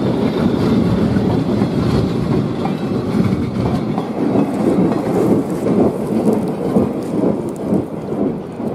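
Passenger train rolling away over rough jointed track: a steady rumble of wheels and cars with scattered clicks, slowly fading toward the end.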